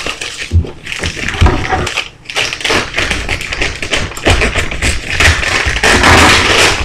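Unboxing handling noise: repeated taps and knocks of items against a box, turning to denser rustling of packaging near the end.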